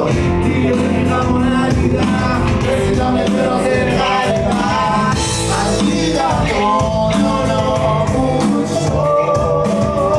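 A band playing a rock song, with electric guitar and drum kit and a voice singing over them.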